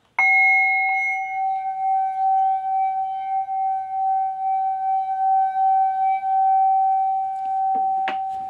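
Metal singing bowl struck once with a wooden striker, then ringing on in one long steady tone with fainter higher overtones, its loudness gently wavering. There is a light knock near the end.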